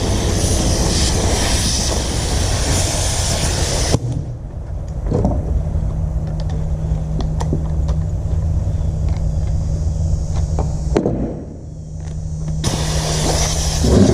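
Compressed air hissing loudly from a leaking air line and pneumatic beveling tool, cutting off about four seconds in and starting again near the end. A steady low hum runs through the quieter stretch between.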